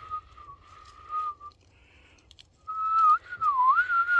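A person whistling: one steady note for about a second and a half, then after a short pause a longer note that wavers up and down.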